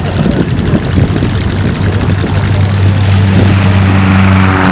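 Short SC-7 Skyvan's turboprop engines and propellers running close by. A rough low rumble settles about two seconds in into a steady low propeller drone that grows a little louder toward the end.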